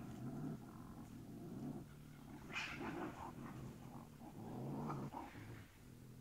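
Low, dog-like animal vocal sounds from an unseen animal in three stretches of about a second each; the middle one opens with a sharper, brighter sound.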